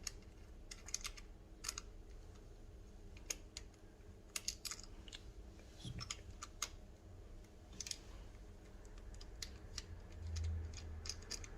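Bolts on the e-bike's handlebar clamp being tightened with a hand tool: a quiet, irregular run of small clicks and ticks.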